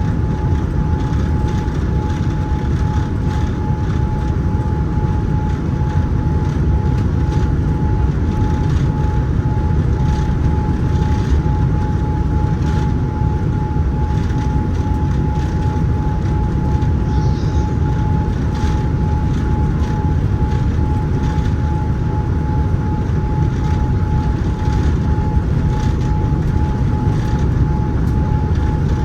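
Steady cabin noise inside a Boeing 787-9 airliner: a low roar from the engines and airflow, with a steady high whine held throughout.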